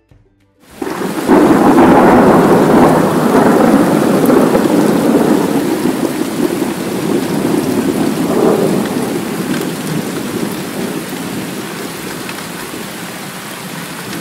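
Thunderstorm recording: rumbling thunder over steady rain. It starts suddenly about a second in and is loudest just after, swells again with a second roll of thunder about eight seconds in, then slowly fades.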